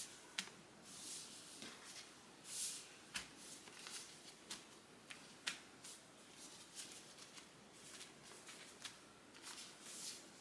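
Faint rustling of microfiber fabric being smoothed by hand, with light taps as pattern weights are set down on it, in scattered short bursts.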